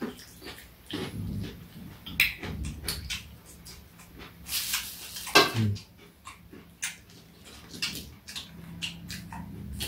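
Eating sounds: fried chicken being chewed and pulled apart by hand, with foil crinkling and a spoon clicking and scraping on a metal tray. About halfway through there is a short sound that falls in pitch.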